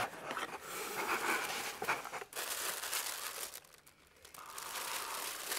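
Tissue paper rustling and crinkling as hands unpack a gift from a cardboard box, in spells with a short pause a little before four seconds in.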